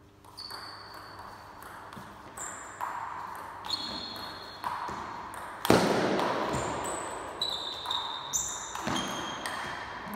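Table tennis rally: the celluloid ball clicking back and forth off the rackets and the table, each hit ringing briefly in a large echoing hall. There is one much louder hit about halfway through.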